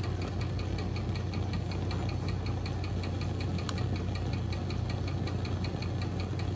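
A steady low mechanical hum with a fast, regular ticking, about five ticks a second, from laboratory equipment running; one sharper click stands out a little before the four-second mark.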